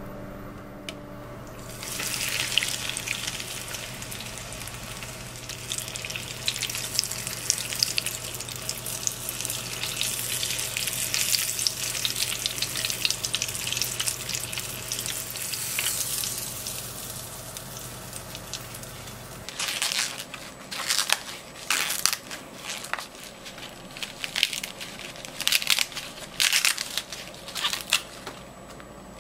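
Food deep-frying in hot oil in a small saucepan: a dense sizzle and crackle that starts about two seconds in and dies away after about twenty seconds. Then fresh ears of corn being husked by hand, the green husks tearing and crackling in short bursts.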